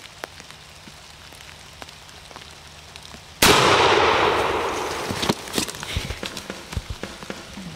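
A single shotgun shot from a Thompson Center Encore turkey gun, about three and a half seconds in. Its report dies away over about two seconds.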